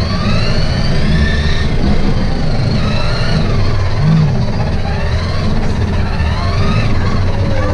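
Electric ride-on toy car driving, its motor and gearbox whining in a pitch that rises and falls again and again as it speeds up and slows, over a steady low rumble.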